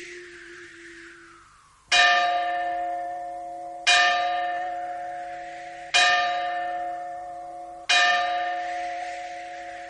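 Slow tolling of a large bell: four strokes about two seconds apart, each ringing out with several tones and fading before the next, after a held tone dies away in the first second and a half.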